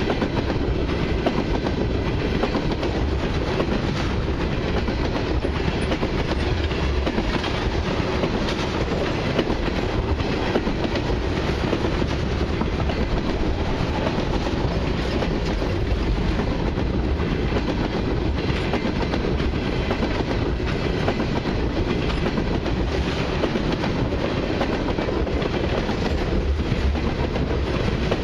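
Freight train tank cars rolling steadily past at a grade crossing: a continuous rumble with the clatter of steel wheels on the rails.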